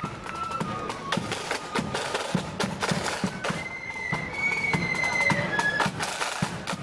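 Marching flute band playing: a high flute melody over a steady beat of snare and bass drums.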